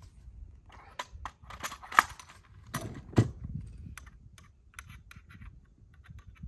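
Small metal clicks and clinks of hardware as a plastic wheel is fitted onto a kayak cart's metal axle and a pin is worked in at the hub, with a sharp click about two seconds in and a knock about a second later.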